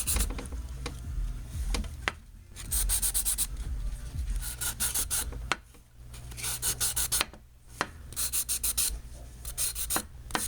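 Sandpaper (100 grit) rubbed by hand over the clear coat of a carbon fiber bicycle crank arm, roughing up the top layer: quick back-and-forth scratchy strokes in short bursts with brief pauses between them.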